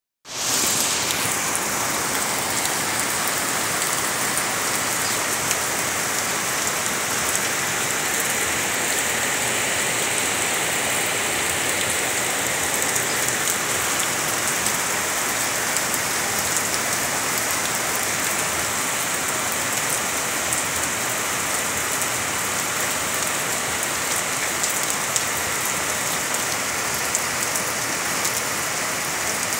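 Rain falling steadily, an even hiss of drops that does not change in strength.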